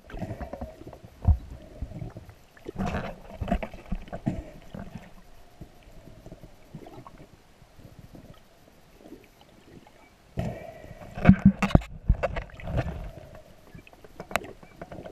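Underwater camera sound of a diver moving through the water: gurgling and sloshing with scattered knocks and clicks, busier about three seconds in and again from about ten to thirteen seconds, quieter in between.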